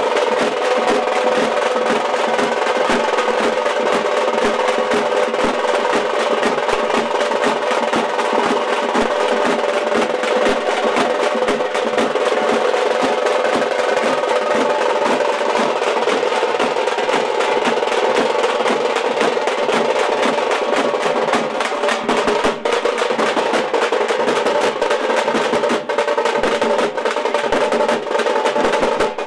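Several large frame drums (tamate) beaten with sticks in a fast, continuous, driving rhythm.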